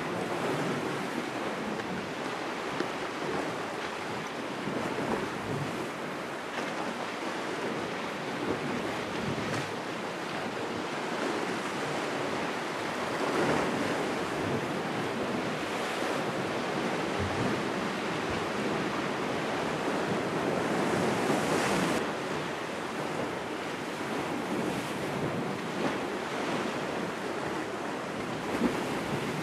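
Sea waves washing and breaking against the rocks at the foot of a cliff, with wind buffeting the microphone; the surf swells louder a couple of times, and there is a brief knock near the end.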